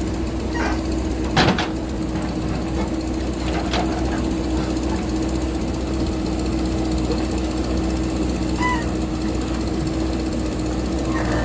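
JCB backhoe loader's diesel engine running steadily under load while digging, with one loud knock from the digging work about a second and a half in and a few lighter knocks around it.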